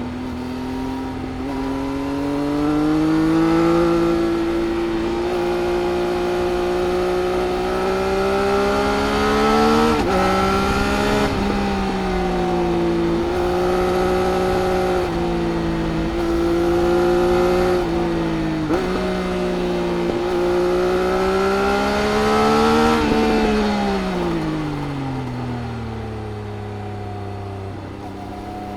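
A Triumph Speed Triple RS's three-cylinder engine through its Arrow silencers, heard onboard while riding. The revs climb and drop back at several quick gear changes, then fall away steadily near the end as the throttle closes.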